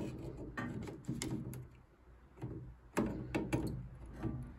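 Hand tools clicking and knocking against the spin dryer's fittings while the old perished rubber hose is worked off, a series of irregular sharp knocks with a brief lull about two seconds in.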